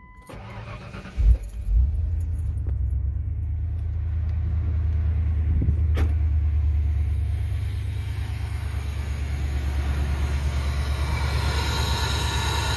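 A 1997 Ford Explorer's 302 V8 being cranked, catching about a second in and settling into a steady idle. This is its first start test with a modified 94–95 Mustang cold air intake fitted. Near the end the intake rush at the open cone air filter grows louder.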